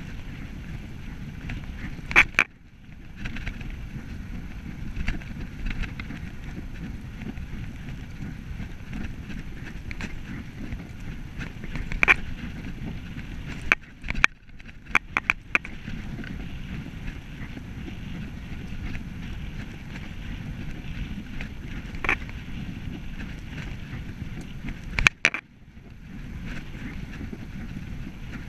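Bicycle being ridden on a tarmac path: a steady low rumble of tyres and wind on the microphone, broken by a few sharp clicks and rattles from the bike, with a cluster of them about halfway through.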